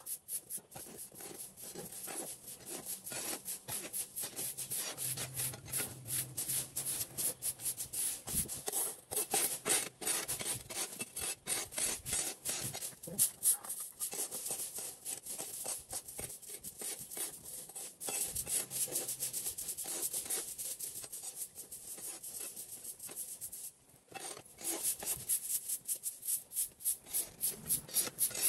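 Fast, repeated rubbing and scraping strokes, several a second, with a brief pause about 24 seconds in.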